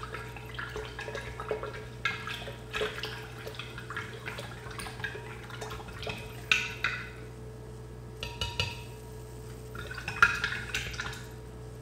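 Metal spoon stirring powdered black dye into hot water and vinegar in a large glass beaker, clinking and scraping against the glass with the liquid swishing, in irregular strokes that are louder about two-thirds of the way in and near the end. This is the powder being dissolved into a concentrated dye stock.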